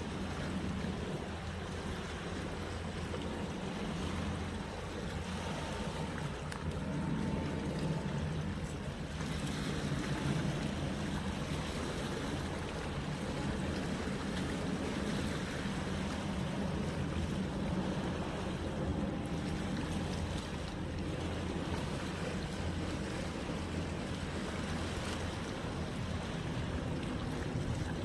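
Sea waves washing steadily against coastal rocks, with a steady low rumble underneath.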